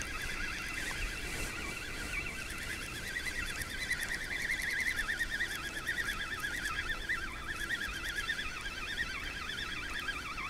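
A continuous chorus of many overlapping animal calls, high-pitched and warbling, rising and falling quickly in pitch.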